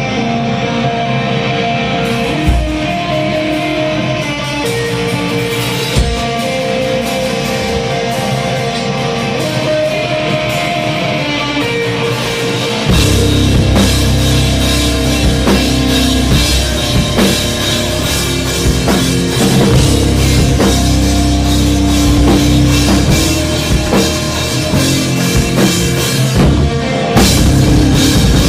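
Rock band playing live: guitar carries the first part with a few single drum hits, then about thirteen seconds in the drums and bass come in and the full band plays heavily.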